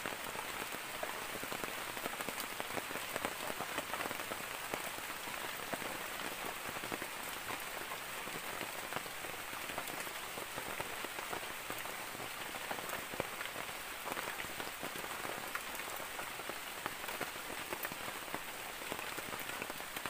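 Steady rain falling on forest foliage and leaf litter: an even hiss with many small drop ticks.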